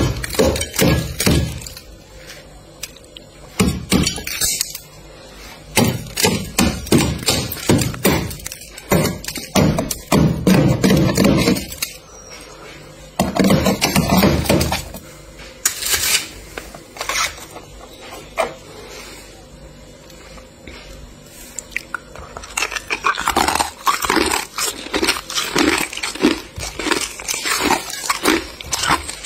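Flat metal scraper blade hacking and scraping at thick freezer frost and breaking off chunks of ice: clusters of sharp chops and scrapes with short pauses between, and a steady run of strokes at about two a second near the end.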